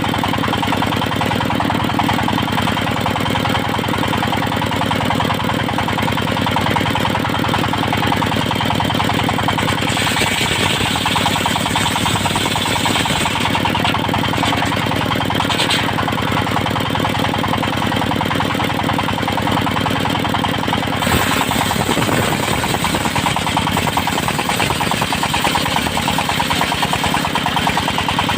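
Engine-driven circular sawmill running steadily while its blade rips a teak log into boards; a harsher cutting hiss comes in about a third of the way through and again after about two thirds.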